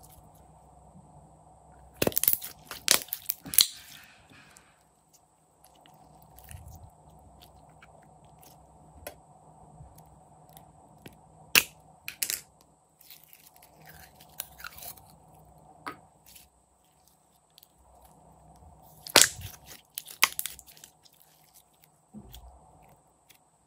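Hands working glossy glitter slime and plastic slime cups: scattered sharp clicks and crackles in clusters, with quieter sticky crackling between.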